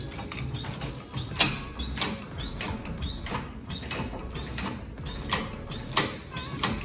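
Hydraulic floor jack being worked under the rear of a pickup: a quick run of metallic clicks and creaks, about two or three a second, with short squeaks, over quiet background music.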